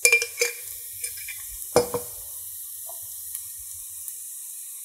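Onion mixture sizzling steadily in hot oil in a pan, with a metal utensil clinking against the pan: two strikes near the start and two more about two seconds in.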